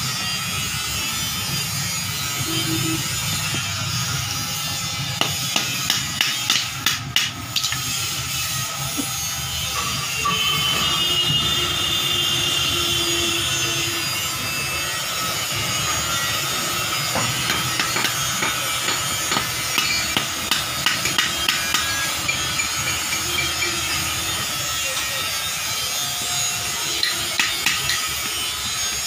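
Hammer striking a punch against a steel vehicle brake shoe, in several runs of sharp metallic taps, with a steady hum underneath.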